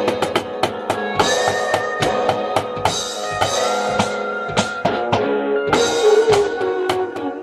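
Drumming along to a song: fast drum and cymbal strikes, several a second, over held guitar-like notes. The drums are played on an electronic drum kit.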